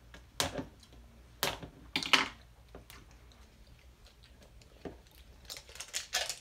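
Scattered sharp clicks and crackles of a plastic wrapper being snipped with scissors and picked off a plastic toy capsule, with a small cluster about two seconds in and more near the end.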